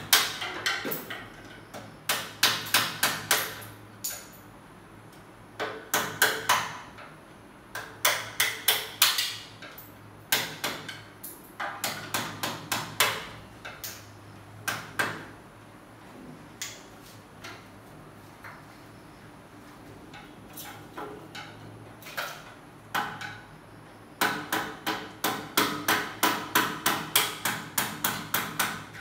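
Hand hammer striking at the head of an aluminium window frame, in quick runs of sharp blows about five a second with pauses between; the longest run comes near the end.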